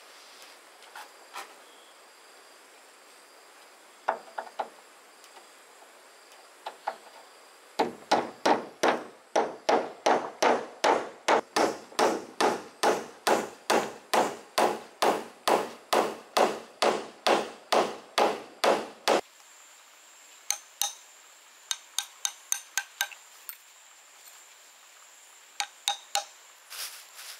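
Hammer blows: a few scattered knocks, then a steady run of strikes at about two and a half a second for about eleven seconds, then a few light taps near the end.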